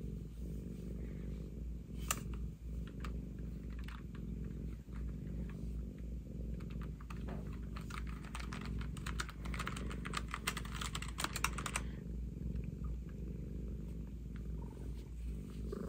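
A cat purring steadily as it is stroked, a continuous low rumble. In the middle, a run of quick computer-keyboard key clicks lasting a few seconds.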